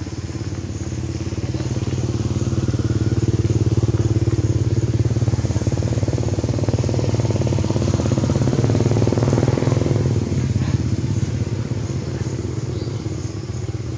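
Engine of a motor vehicle passing close by, running steadily with a low hum. It grows louder over the first few seconds and fades after about ten seconds.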